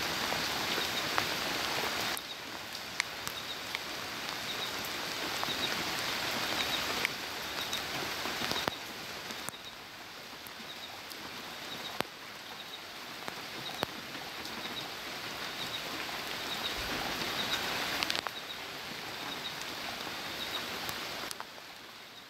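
Heavy rain falling steadily: a dense hiss with scattered sharp ticks of drops striking nearby surfaces. It steps quieter a few times and fades out at the very end.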